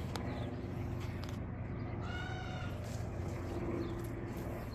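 A single drawn-out animal call, rising then falling in pitch, about halfway through, heard over a steady low hum.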